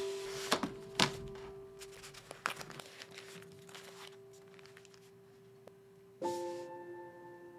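Keyboard packaging being unwrapped by hand: a paper wrapper and box sleeve rustling and sliding, with two sharp taps about half a second and a second in and a run of small rustles a little later. Soft background music holds long notes underneath and moves to a new chord about six seconds in.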